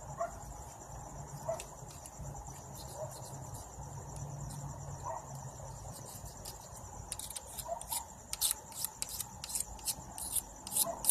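Crickets chirping steadily. From about halfway in, a run of short, rapid scraping strokes, about three a second, as a blade scrapes old gasket residue off the metal mating surface.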